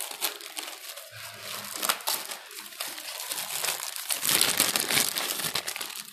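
Plastic packaging bag crinkling and rustling as hands handle the bicycle pedals wrapped inside it, a dense run of rapid crackles that grows loudest about four seconds in.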